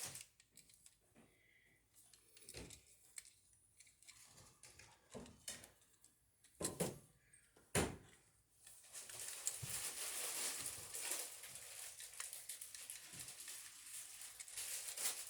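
Hands working the wires at an outlet box while making a pigtail: a few scattered clicks and knocks, then steady faint rustling from about nine seconds in.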